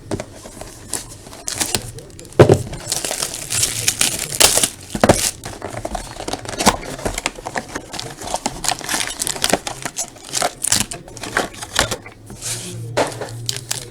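Trading-card pack wrappers being torn open and crinkled: a run of irregular crackling rustles and sharp tears.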